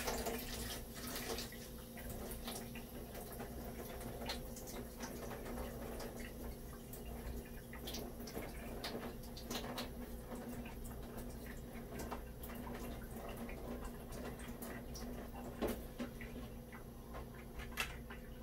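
Faint rubbing and scattered light clicks of a small fishing-tackle part being handled and wiped clean of tomato ketchup used to lift salt corrosion, over a steady low hum.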